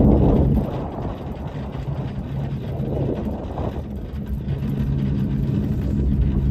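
A motor engine running with a steady low hum. It fades a little under a second in and builds back up over the last couple of seconds.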